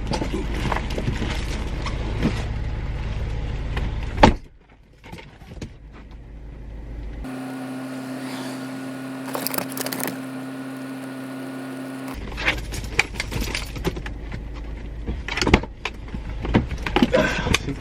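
Car running while parked, heard from inside the cabin as a steady low rumble, with one sharp knock about four seconds in. Later a steady low hum holds for several seconds, then small knocks and rustling.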